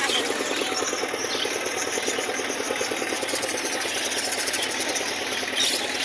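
A small engine idling with a fast, even beat, and budgerigars chirping over it, more of them near the end.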